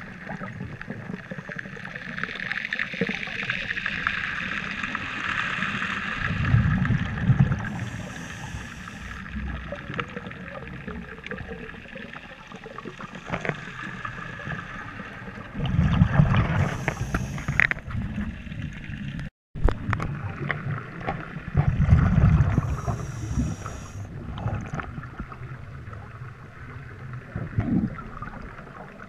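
Underwater ambience heard through a dive camera's housing. A scuba diver breathes through a regulator: three loud rumbling gushes of exhaled bubbles, each with a short hiss of breath through the regulator.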